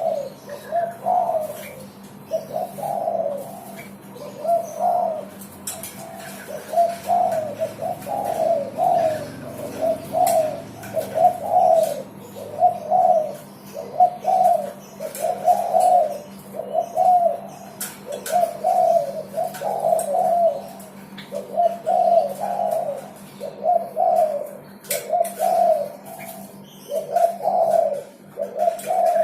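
Derkuku dove cooing over and over in short, repeated phrases, about one a second, with a faint steady hum underneath.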